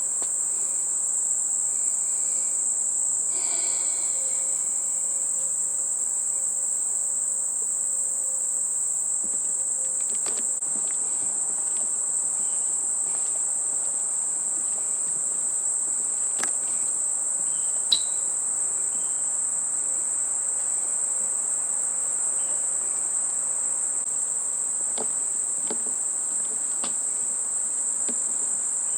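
Steady, unbroken high-pitched insect chorus droning through the whole stretch, with a single sharp click about eighteen seconds in.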